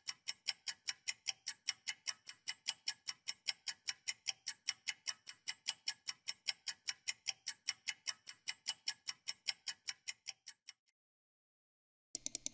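Countdown-timer clock ticking sound effect, about four quick ticks a second, counting down the time to answer a quiz question. The ticks stop about eleven seconds in, and a brief flurry of ticks comes just before the end.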